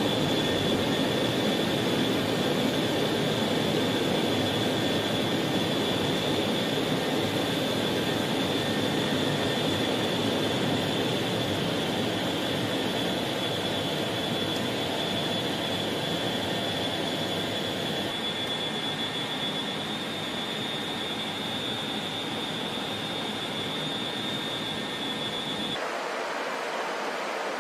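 Jet engines of a large multi-engine aircraft running at takeoff power, heard from inside the cockpit: a steady rushing noise with a high, steady whine. Near the end the whine and the low rumble cut off abruptly, leaving a softer hiss.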